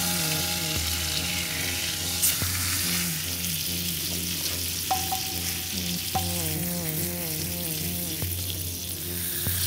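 Chicken sizzling in a skillet over campfire coals, a steady frying hiss with a few light clicks of tongs against the pan. A soft background melody of stepping notes plays along.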